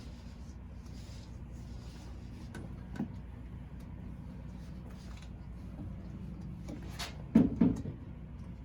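A sharp click, then a pair of dull knocks near the end, over a steady low hum.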